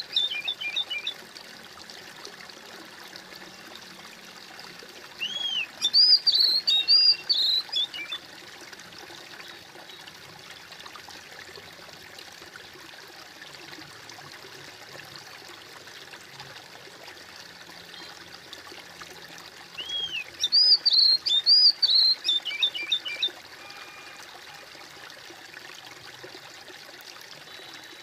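Water trickling and babbling steadily, like a small stream. Over it a songbird sings the same short phrase three times (at the start, around six seconds in and around twenty seconds in): a few clear arched whistles followed by a run of quick notes. The song phrases are the loudest sounds.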